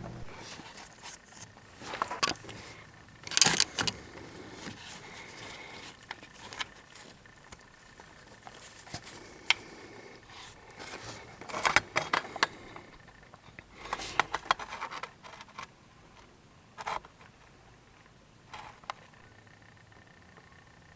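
Intermittent metallic clinks, rattles and scraping of hand tools and parts being handled while working on a diesel engine, coming in several short clusters with quieter gaps between them.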